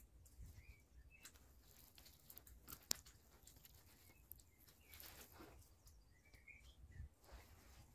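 Near silence with faint scattered ticks and clicks, the sharpest one about three seconds in, and a few faint distant bird chirps.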